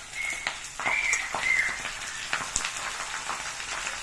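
Raw chicken pieces dropping into hot mustard oil and browned onions in a kadhai, the oil sizzling and crackling with many small spatters.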